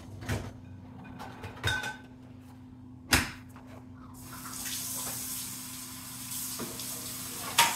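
A few light clatters of dishwasher racks and dishes, then a loud sharp knock about three seconds in. From about four seconds in, a kitchen faucet runs steadily into the sink, with another sharp clack near the end.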